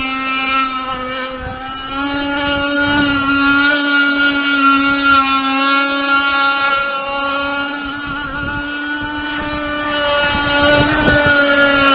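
RC racing boat's 29.5cc Zenoah two-stroke gas engine on a WYK33 carburettor running at a high, steady pitch, growing fainter and louder again as the boat laps the pond.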